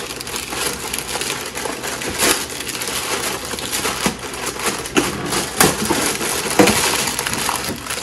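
Packaging crinkling and rustling as a shoe box is opened and the shoes are unwrapped, a steady crackle dotted with sharp crackles and small knocks.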